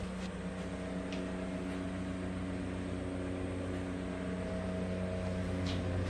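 A steady low mechanical hum, slowly getting a little louder, with a couple of faint clicks.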